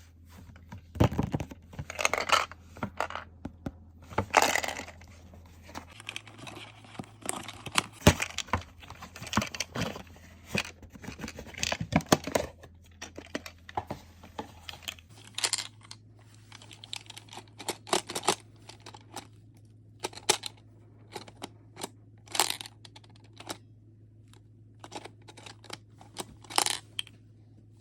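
Packaging being torn and crinkled open, with irregular rustling and sharp clicks and knocks of handling, fewer and more spaced out in the second half. A faint steady low hum runs underneath.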